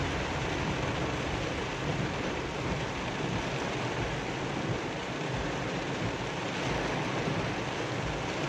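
Heavy rain pounding on a moving car's roof and windshield, heard from inside the cabin as a steady rush, with low road and engine noise underneath.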